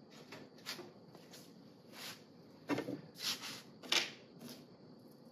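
Feeler gauge set being handled to pick out the 0.030-inch blade for checking a piston ring's end gap: thin steel blades flipped and slid against one another in a string of about eight short, light rustles and clicks, the loudest about three and four seconds in.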